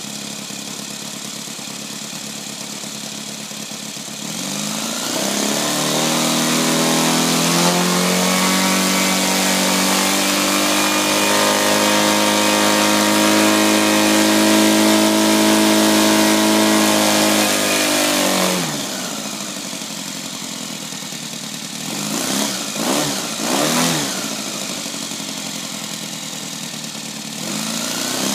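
Saito 200 twin-cylinder model-aircraft engine on its first run, idling, then run up to high revs and held there for about fourteen seconds before dropping back to idle. It is then blipped up and down twice and opens up again near the end.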